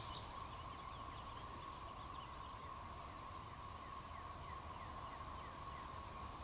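Faint, steady high hum from far off, of unknown origin, sounding like something rolling in the distance or like factory machinery running, with faint bird chirps over it.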